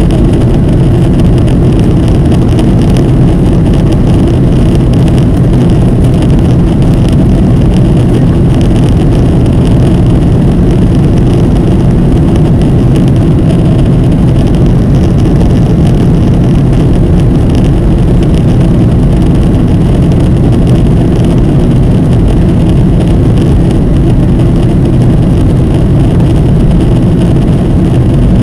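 Steady in-flight cabin noise of a Boeing 737: a constant low rumble of its jet engines and the rush of air over the fuselage, heard from a window seat inside the cabin.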